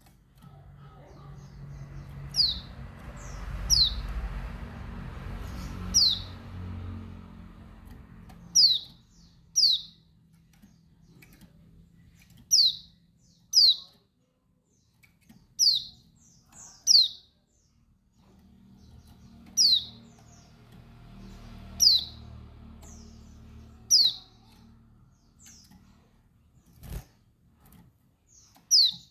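Female white-eye (pleci, Bali 'dakbal' type) giving short, high, downward-slurred call notes, often in pairs, every couple of seconds. A low rumble sits underneath for a few seconds early on and again past the middle, with a single click near the end.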